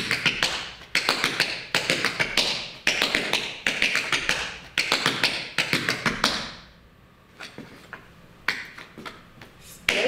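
Tap shoes striking a hard floor in quick rhythmic clusters: a tap dancer performing the cross-the-buckle step (shuffle, step, heel, step, hop, shuffle). The taps run dense for about six seconds, fall to a few faint taps, then pick up again near the end.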